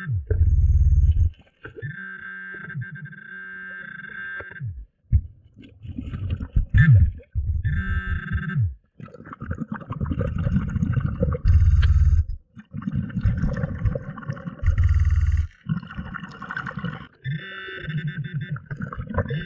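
Underwater sound while diving: bursts of low rumbling and gurgling from the diver's exhaled breath bubbles, with a few short glides in pitch. These alternate with several stretches of a steady, buzzing high electronic tone.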